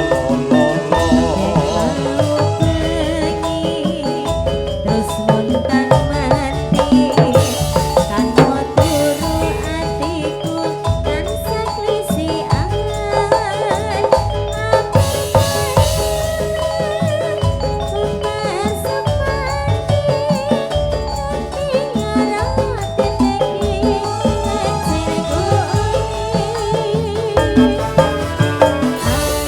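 Ndolalak folk music from a live band played loudly through a PA sound system, with drums and pitched percussion over sustained melodic tones.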